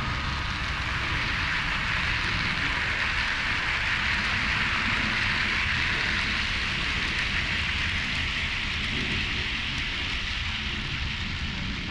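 HO scale model train rolling along the track: a steady hiss of wheels on rail over a low rumble, growing louder toward the middle and easing a little later.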